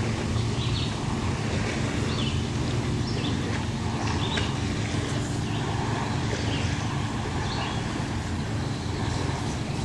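Steady low hum and hiss of background noise, with faint short squeaks and scratches from a Copic alcohol marker's nib stroking over card stock, about one every second.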